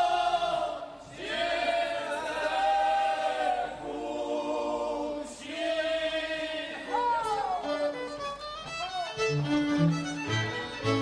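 Men singing a Podhale highlander (góral) song in unaccompanied, high-pitched part-singing, in a few long held phrases, the last ending in a falling slide about seven seconds in. Near the end a string band strikes up: fiddles over short, rhythmic low bass notes.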